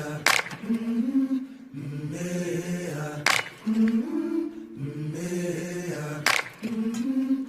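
Song intro of wordless chanted vocals holding low, slowly shifting chords, with a sharp percussive hit about every three seconds, three times in all.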